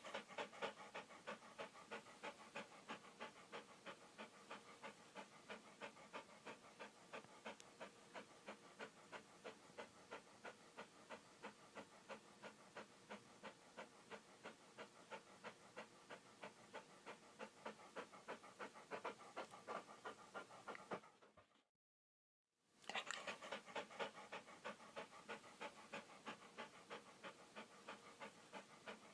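Dog panting quickly and evenly, about three to four breaths a second. The panting cuts off for about a second around two-thirds of the way through, then starts again.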